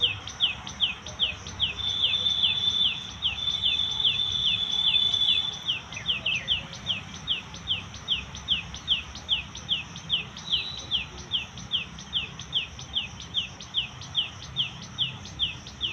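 A high, short falling chirp repeated very regularly, about three times a second, from a small calling animal, with a steady high-pitched trill over it from about two seconds in to about five and a half seconds.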